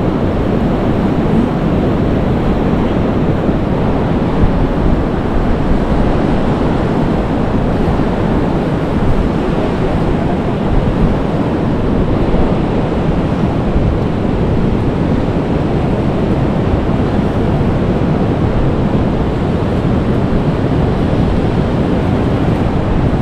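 Steady wind rushing over the microphone, mixed with the wash of surf on the beach: a continuous low, even noise.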